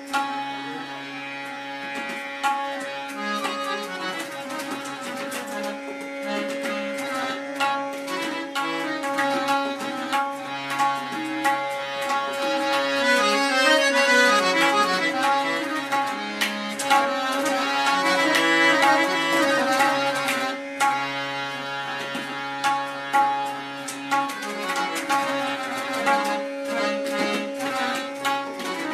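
Tabla played with harmonium accompaniment: the harmonium plays a melody over steady held drone notes while the tabla keeps up a run of sharp strokes. The drumming grows louder and denser in the middle and eases off again near the end.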